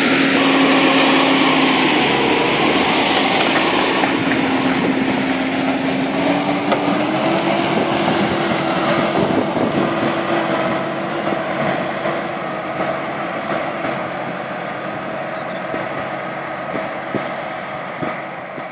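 New Holland T8390 tractor's six-cylinder diesel engine working hard as it pulls a three-furrow plough. The engine note rises a little a few seconds in, then holds steady and slowly grows fainter as the tractor moves away.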